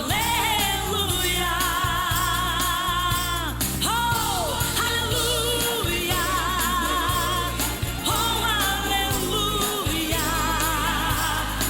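Live gospel music without words: a melodic lead line with vibrato and sliding notes over a steady bass accompaniment.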